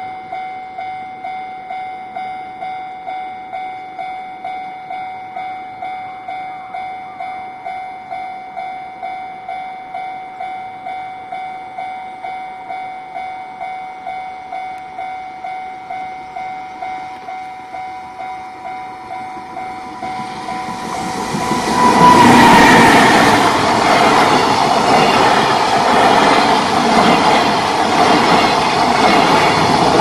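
A Japanese level-crossing warning bell rings in a steady, even repeating rhythm. About 21 s in, a JR Freight EF210 electric locomotive and its container wagons pass close by, loud and getting louder, with wheels clattering over the rail joints.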